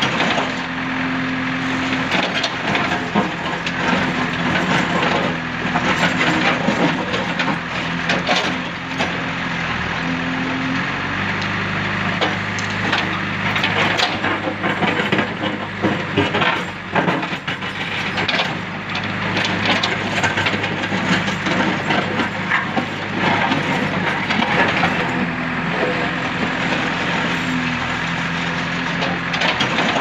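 JCB 3DX backhoe loader's diesel engine running under load, its note shifting about a third of the way in and again near the end, over continuous crunching and clattering as the backhoe bucket scrapes and breaks up a pile of broken rubble.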